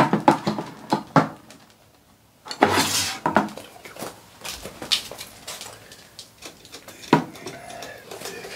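Dishes and cutlery clattering as they are handled and set down. There is a run of knocks and clinks, a short lull about two seconds in, then a loud clatter followed by scattered clinks, and another sharp knock about seven seconds in.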